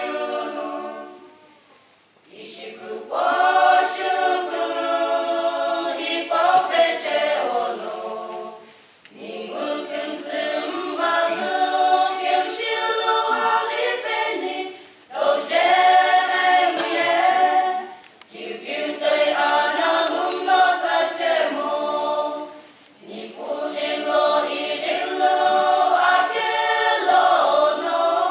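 Women's choir singing in unison or harmony, unaccompanied, in phrases several seconds long with brief pauses for breath between them.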